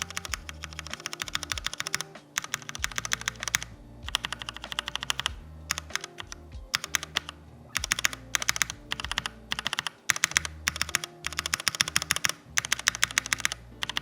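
Typing on a mechanical keyboard fitted with Kailh Red linear switches: fast runs of keystrokes in bursts a second or two long, with short pauses between.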